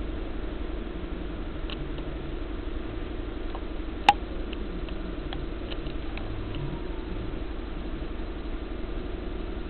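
Kalamazoo KMT cold saw motor and blade running with a steady hum as the blade feeds down into a metal bar. There is one sharp click about four seconds in, then a few light ticks while the blade cuts.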